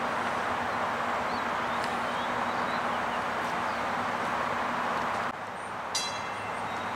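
TTC streetcars, a CLRV and a Flexity Outlook, moving slowly through a turning loop over a steady background rumble. Near the end a sharp metallic click is followed by a short, high ringing tone.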